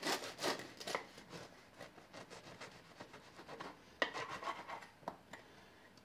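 Kitchen knife sawing back and forth through the crust of a baked beer-bread loaf on a wooden cutting board: quick rasping strokes, loudest in the first second and fainter after. A sharper knock and scrape come about four seconds in as the cut finishes.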